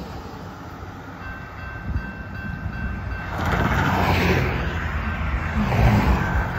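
Railroad crossing bell starts ringing about a second in as the crossing signals activate. About halfway through, the rumble of the approaching Canadian Pacific freight train grows louder.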